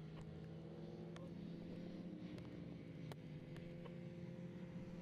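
Faint, steady engine hum of distant motorcycles running at low revs, its pitch drifting slowly, with a few faint clicks.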